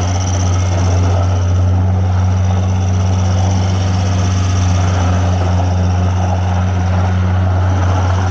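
New Holland L555 Deluxe skid steer's engine running at a steady speed, a deep, even hum.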